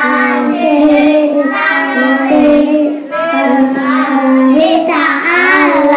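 Young children singing a song together in Indonesian, in held and gliding phrases without a break.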